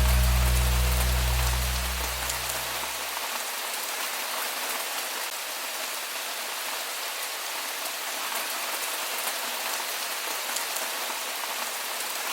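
Steady rain falling, an even hiss of many drops. A held low musical chord fades out under it in the first three seconds or so.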